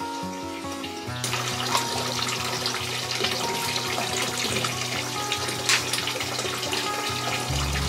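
Water running and splashing in a filled bathtub, starting about a second in, over background music with a stepping bass line.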